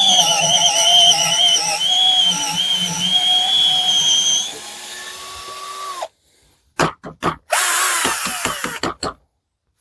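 Parkside PBSA 12 D4 12 V cordless drill boring a hole with a large drill bit, its motor pitch wavering under load for about four and a half seconds, then running lighter and stopping abruptly about six seconds in. A few knocks and a short burst of noise with a falling tone follow.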